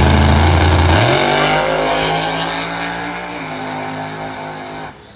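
Drag racing car engine at full throttle, very loud at first. About a second in its pitch jumps up, then the sound fades steadily as the car pulls away down the strip, and it cuts off abruptly near the end.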